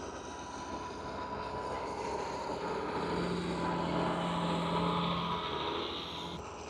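Ford TW25 tractor's six-cylinder turbo diesel engine running under steady throttle. It swells louder for a couple of seconds in the middle, then drops off abruptly near the end.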